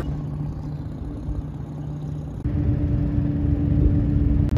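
Small outboard motor running steadily at speed, pushing an aluminum jon boat under the load of a dinghy in tow, with a low rumble. About halfway through its steady tone steps higher.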